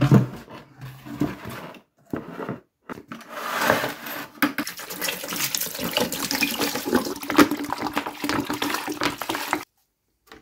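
A few knocks as rusty metal dividing-head parts are set into a plastic bucket. From about three seconds in, white vinegar pours steadily from a plastic bottle into the bucket over the parts. The pour cuts off suddenly near the end.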